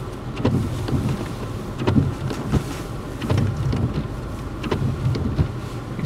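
A motor vehicle's engine runs with a steady low rumble, under short soft thumps that come in pairs about every second and a half.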